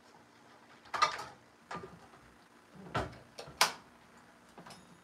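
Kitchen clatter from a lower cabinet and a pan being handled: about five sharp knocks and clatters, the loudest about a second in and again just past three and a half seconds.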